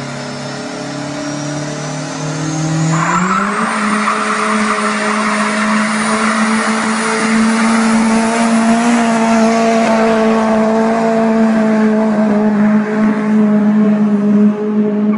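Car doing a burnout: the engine revs climb over the first three seconds, then hold steady at high revs while the spinning tyres squeal.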